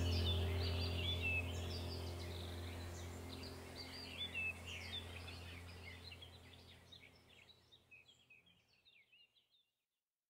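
Birds chirping over a steady low drone, the whole fading out gradually to silence about nine seconds in.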